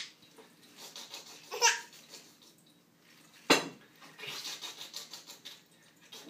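A baby's short laugh about a second and a half in, then a sharp snap about halfway through, followed by a couple of seconds of soft crinkling rustle from plastic air-pillow packaging.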